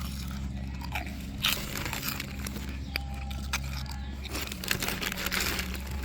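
Quavers corn crisps being crunched and chewed close up, an irregular string of crisp crunches, over a steady low hum.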